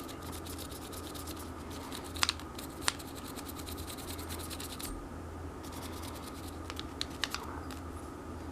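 Brush scrubbing the lower frame of a Beretta 92FS pistol: a rapid run of scratchy bristle strokes, with a couple of sharper taps a little over two and about three seconds in. A steady low hum runs underneath.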